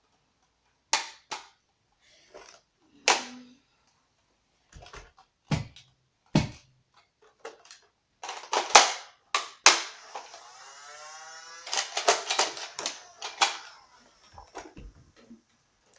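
Nerf blasters firing foam darts, with darts and plastic bottle targets being hit: a series of sharp separate clicks and knocks, a whirring tone for a couple of seconds about ten seconds in, then a quick cluster of knocks.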